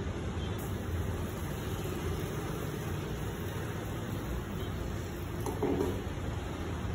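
Steady roar of a gas range burner under a frying pan. About five and a half seconds in, a short scrape and knock as the pan is set back on the burner grate.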